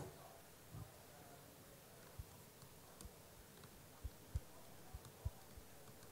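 Faint, scattered keystrokes on a laptop keyboard: about eight soft, irregular taps over a quiet room.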